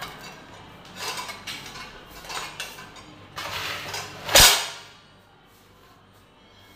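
Washed dishes and utensils clattering as they are stacked into a kitchen dish rack: a series of clinks and knocks, with one sharp, loudest clang about four and a half seconds in.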